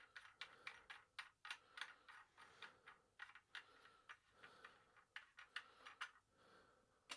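Faint, irregular light clicks and ticks, a few a second, from hands working small plastic faucet and plumbing parts.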